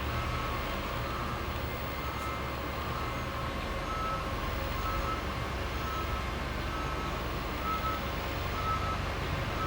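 Reversing alarm of a heavy vehicle beeping about once a second over a steady low engine rumble.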